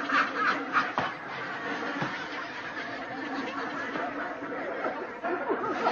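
A man laughing in quick bursts for about the first second, then trailing off into a lower, steady noisy background.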